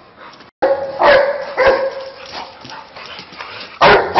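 A dog barking: a run of short barks about half a second to a second apart, with the loudest bark near the end.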